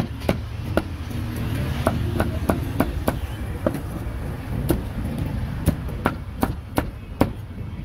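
Cleaver chopping grilled pork: a run of sharp, irregular knocks, about two or three a second, over a steady low rumble of street traffic.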